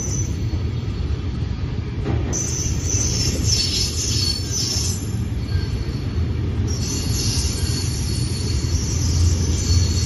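Container freight train's wagons rolling past at close range: a steady low rumble of wheels on rail, with bouts of high-pitched metallic squeal from about two seconds in and again from about seven seconds.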